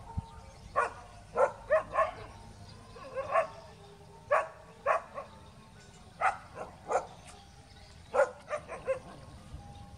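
Stray dog barking in short sharp bursts, two to four at a time, again and again, as it stands off against other dogs.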